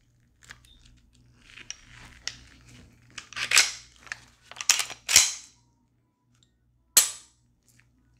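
Slide and trigger of a Gen 3 Glock 22C pistol being worked by hand: a few sharp metallic clacks, most in a cluster a little past the middle and one more near the end, with softer handling rattles before them. It is a function check of the firing pin, which the owner suspects may be sticking.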